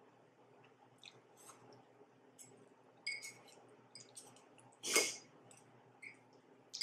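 Chopsticks clicking and scraping against a ceramic bowl as noodles are picked up and eaten, with a few short ringing clinks and a louder clatter about five seconds in.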